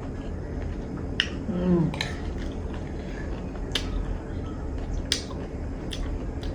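A spoon clicking against a dish in about five sharp, separate ticks while eating. A short hum with a falling pitch comes about a second and a half in.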